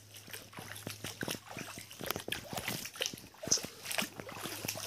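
Irregular crackling and rustling of leaves and twigs as someone moves through dense undergrowth.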